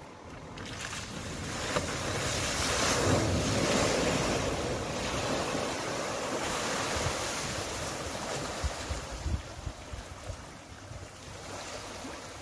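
A car ploughing through a deep flooded ford, its bow wave rushing and splashing. The water noise builds about a second in, is loudest around three to four seconds, then eases as the car slows, with wind gusting on the microphone near the end.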